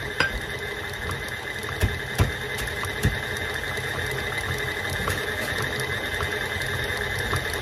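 KitchenAid stand mixer running steadily with a whine, creaming butter and sugar. A few sharp knocks sound over it, the loudest about two seconds in.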